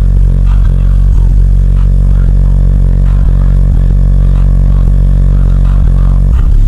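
Bass-heavy rap music played very loud through a car's 15-inch Lanzar and 12-inch Kenwood subwoofers, wired as a 2-ohm load on a mono-block amplifier; the deep bass dominates, and the beat changes just before the end.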